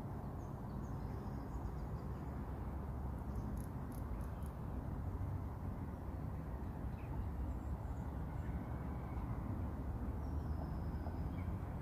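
Lakeside outdoor background: a steady low rumble with faint bird chirps and a few light clicks about four seconds in.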